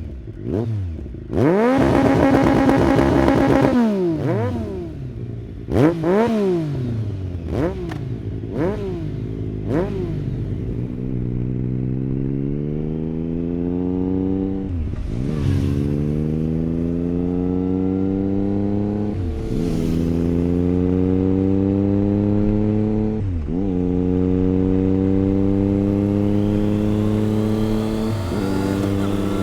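Triumph Daytona 955i's 955cc three-cylinder four-stroke engine: a run of quick throttle blips with one high rev held for about two seconds. It then pulls away and accelerates through the gears, the pitch climbing and dropping sharply at each of three upshifts.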